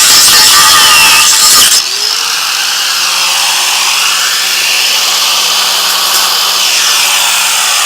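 Kawasaki 4.5-inch angle grinder cutting through steel bolts, loud. Nearly two seconds in, the load eases and the motor's pitch rises. It keeps running steadily with lighter grinding.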